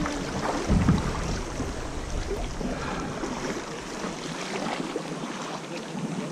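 River current rushing and splashing around a kayak's hull as it floats through choppy water, with a few low thumps in the first second.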